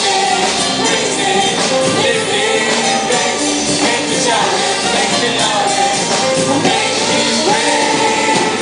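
Christian worship song: voices singing over instrumental accompaniment.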